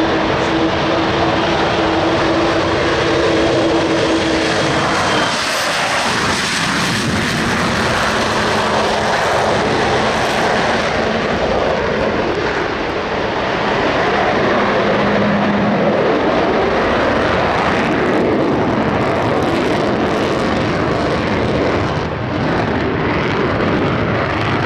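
Avro Vulcan XH558's four Rolls-Royce Bristol Olympus 202 turbojets running at takeoff power: a loud, steady jet roar as the bomber takes off and climbs away. A steady tone within the noise cuts out about five seconds in, and a lower one comes and goes in the middle.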